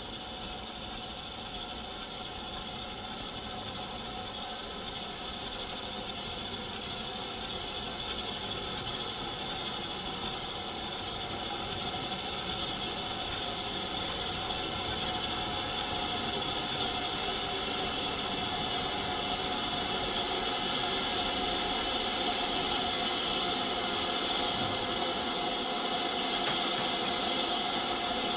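BR Standard steam locomotive approaching at low speed, a steady hiss of steam over its running noise, growing gradually louder as it nears.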